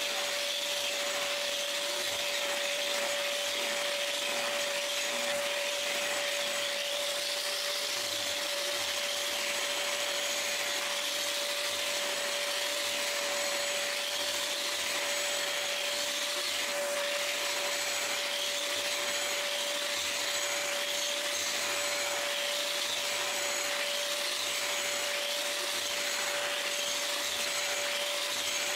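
Angle grinder with a disc grinding concrete while a shop vac draws air through the grinder's dust shroud: a steady whine with one constant tone.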